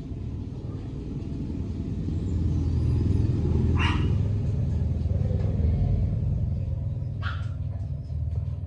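A low rumble that swells and then slowly eases, with a dog giving two short barks, one about four seconds in and one near the end.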